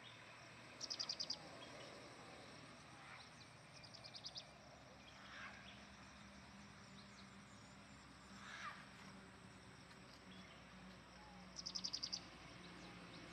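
Quiet outdoor ambience with a small animal's high, rapid chirping trill heard three times, about a second in, around four seconds and near the end, plus a couple of brief single calls in between. A faint, steady low hum runs under the second half.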